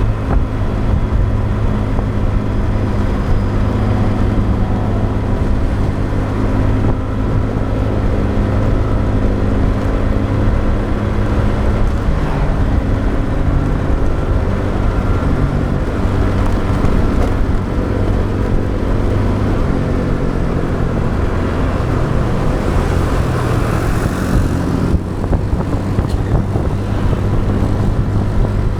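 Motorbike engine running steadily under way, with wind and road noise. A louder rush of hiss swells and fades about 24 seconds in.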